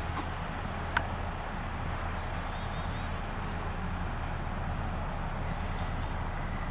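Steady low drone of a natural-gas drilling rig's machinery running, with a hiss over it and a single sharp click about a second in.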